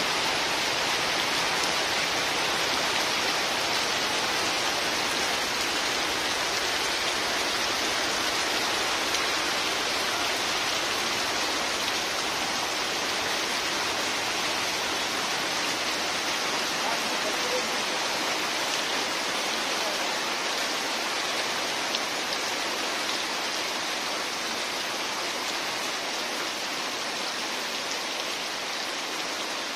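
Heavy rain pouring steadily onto river water, plastic-covered boats and leaves, as a dense even hiss that eases slightly toward the end.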